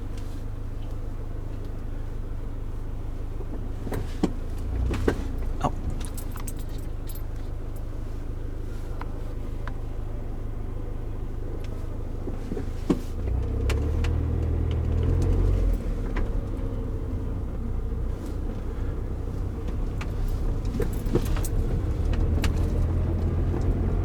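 Car cabin rumble from the engine and road while driving, swelling louder about halfway through and again near the end, with scattered light clicks and jingles like keys rattling.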